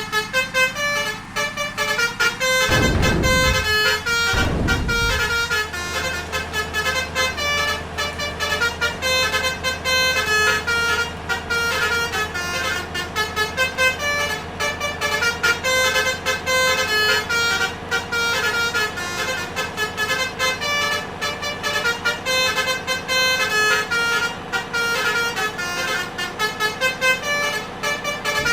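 Basuri musical bus horn playing a telolet tune: a continuous melody of short notes, changing several times a second. Two deep falling glides sound about three and four and a half seconds in.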